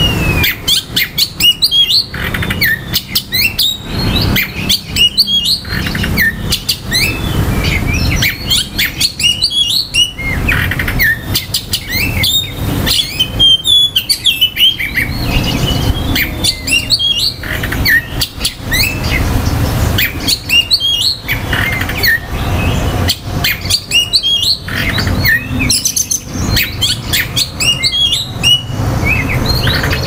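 Male Oriental magpie-robin singing a long, varied song of whistled glides, chirps and harsh rasping notes, broken by short pauses. A low rumble runs underneath.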